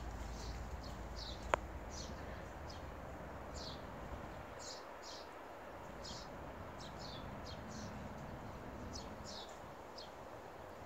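Small birds chirping: many short, high, falling chirps, roughly two a second and irregular. A single sharp click sounds about one and a half seconds in.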